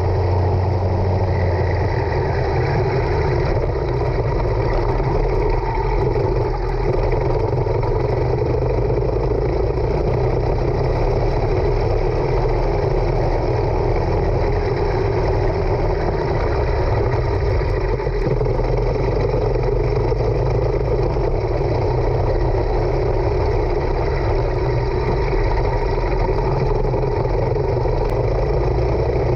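Racing kart engine running hard at racing speed, heard from a camera mounted on the kart. The sound stays steady and loud throughout the laps.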